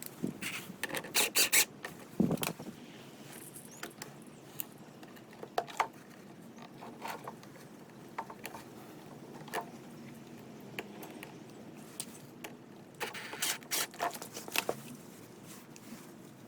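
Scattered clicks, taps and scrapes of hand tools and small metal parts being handled while bolting a new auger blade onto a snow blower. There are two short runs of rapid clicking, one about a second in and one near the end.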